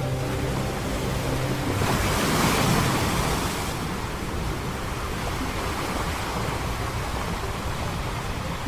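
Ocean waves breaking on a beach: a wave swells up about two seconds in and washes down into steady surf. Soft music notes fade out in the first two seconds.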